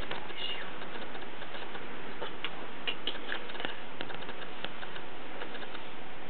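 A brush working through a dog's fur: light scratchy ticks and clicks scattered irregularly over a steady hiss.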